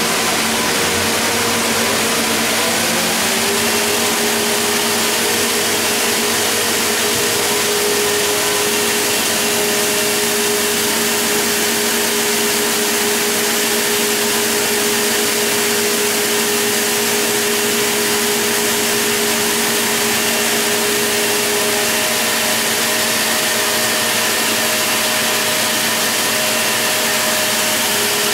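Circular knitting machines running: a steady mechanical whirring hiss with several held hum tones, one of which drops slightly in pitch about three seconds in.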